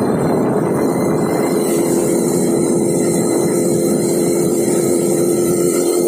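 Motorcycle engine running at a steady cruising speed, with wind rushing over the microphone. A steady hum sits under the rush throughout.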